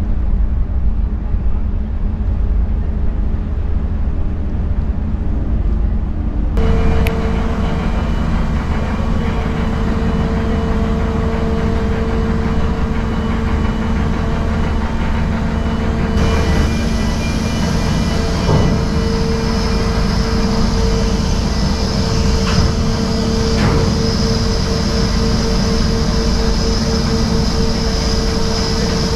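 Steady low rumble of a large ferry's engines and deck machinery heard from the open top deck, with a steady hum joining about six seconds in.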